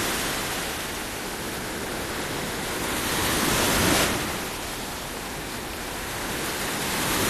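Ocean surf washing onto a beach: a steady rush of breaking waves that swells up about four seconds in and again near the end.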